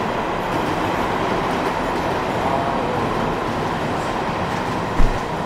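Steady mechanical noise with a faint hum in it, and a single sharp thump about five seconds in.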